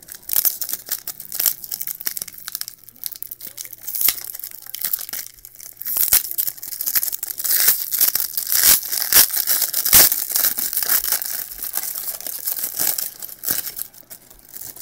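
A trading-card pack wrapper being torn open and crinkled by hand: a long run of sharp crackles, loudest about eight to ten seconds in.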